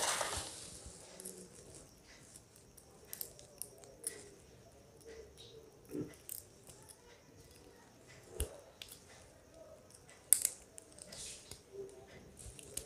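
Faint, scattered small metal clicks and scrapes of a thin tool picking broken porcelain insulator out of the tip of a motorcycle spark plug, with the sharpest click about ten seconds in.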